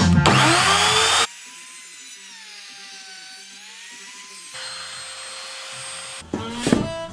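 Palm router motor spinning up with a rising whine, then running and cutting into wood, its whine dipping in pitch and recovering. The sound drops suddenly to a much lower level about a second in and comes back louder later on.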